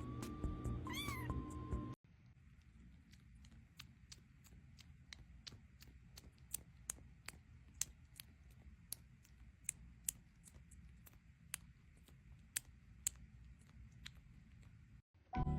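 A domestic cat meows once, about a second in, over music that stops shortly after. Faint, irregular sharp clicks follow until music starts again near the end.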